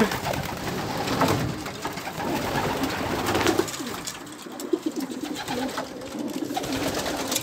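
Racing pigeons cooing in a wooden loft: several low coos that rise and fall in pitch, overlapping, with scattered light knocks.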